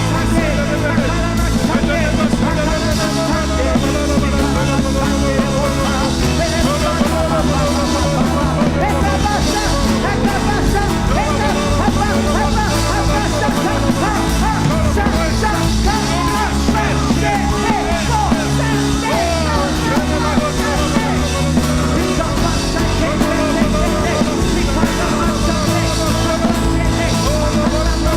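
Loud church worship music with a band's steady bass and voices singing over it.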